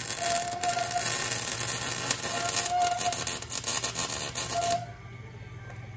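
Electric arc welding on a steel exhaust manifold: the arc hisses and crackles steadily, patching cracks in the manifold, then cuts off about five seconds in.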